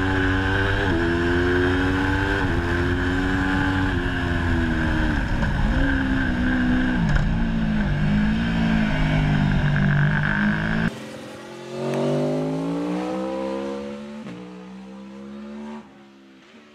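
Aprilia Tuono V4 1100's V4 engine heard on board at track speed: its pitch climbs and drops abruptly at gear changes, then falls away as the bike slows for corners. About eleven seconds in it switches to the bike heard from trackside, quieter, accelerating away and fading out.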